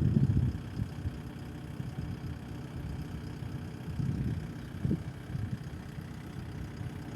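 Engine idling steadily, a low, even hum, with a few short irregular sounds over it near the start and about four to five seconds in.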